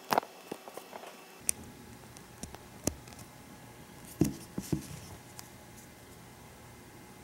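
Small plastic clicks and taps from fingers handling a Nendoroid figure as its head parts are pulled off and fitted back. A few sharp clicks are spread through, with the loudest group about four seconds in.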